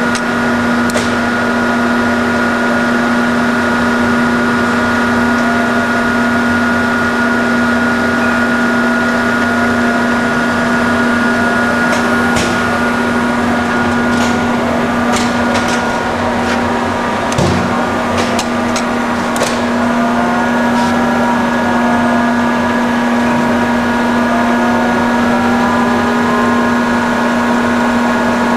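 Cincinnati Milacron 220-8 centerless grinder running: a steady machine hum with a strong low tone and a higher whine. A few sharp clicks and a single knock come in the middle, and in the latter part some tones waver and shift in pitch.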